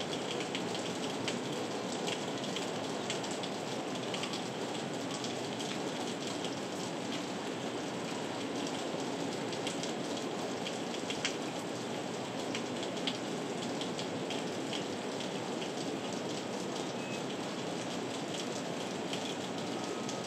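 Heavy rain falling steadily: a dense, even hiss with many sharp drop ticks scattered through it.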